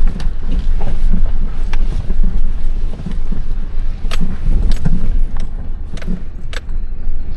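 Engine of farm machinery running steadily, with a handful of sharp clinks and knocks scattered through, like metal and rock striking.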